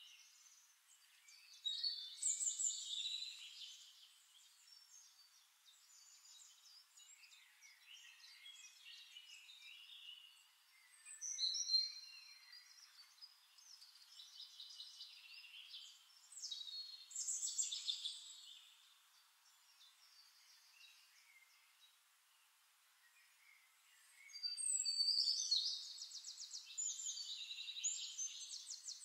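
Birds chirping and trilling in several louder bursts, with quieter chirping between.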